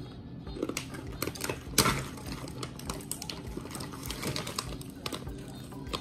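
Close-up crunching and chewing of a crisp snack, irregular sharp crunches with one loud crunch about two seconds in.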